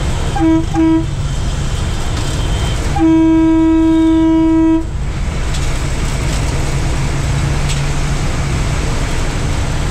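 Bus horn honking: two quick toots just under a second in, then one long steady blast of nearly two seconds, over the steady low running of the bus engine and road noise.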